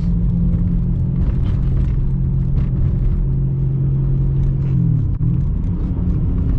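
BMW E92 M3's V8 engine and exhaust droning steadily while driving, over a low road rumble. About five seconds in, the engine note bends and briefly drops, as at a gear change.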